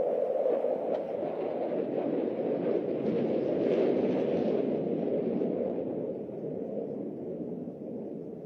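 Jet noise from a JF-17 Thunder Block II fighter's single Klimov RD-93 turbofan during its display: a steady rushing rumble that swells and brightens about three to four seconds in, then eases off toward the end.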